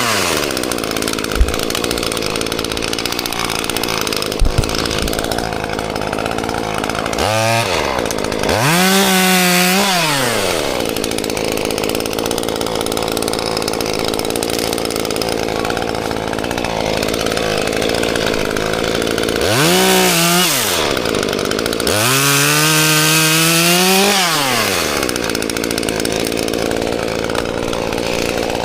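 Stihl 021 two-stroke chainsaw running at high revs while cutting pine branches. The engine eases off and revs back up three times, about a third of the way in and twice in quick succession about two-thirds of the way through.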